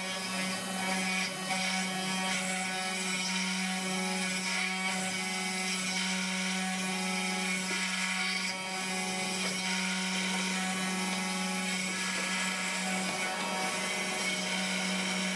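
Spindle of a 3D-printed CNC router cutting wood with an end mill: a steady drill-like whine from the spindle, with the rasp of the bit chipping the wood. Fainter tones change pitch in steps as the machine's axes move.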